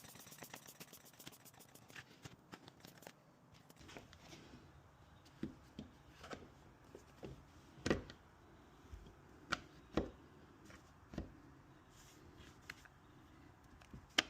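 Locksmith's tools working at a house door's lock: a quick run of small metallic clicks at the start, then scattered clicks and scrapes with several sharper knocks in the middle.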